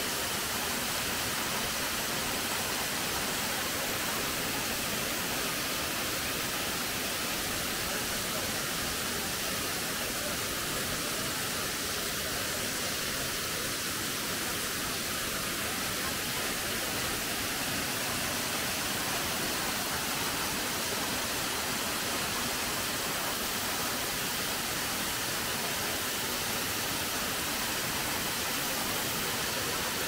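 A waterfall's water falling and splashing in a steady, even rush that does not change.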